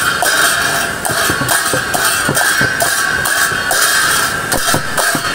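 Brass hand cymbals clashing repeatedly in a procession beat, their ringing held between strokes, over the steady rush of a river in spate.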